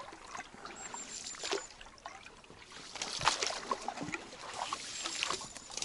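Inflatable rubber boat being rowed through reeds: irregular oar strokes with splashing and dripping water, and reed stems brushing against the hull.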